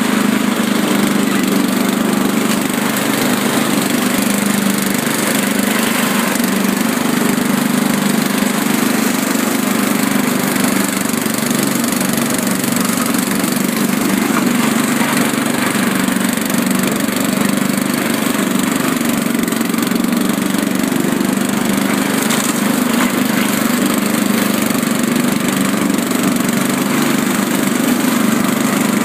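Riding lawn mower engine running steadily and loudly, holding one constant pitch.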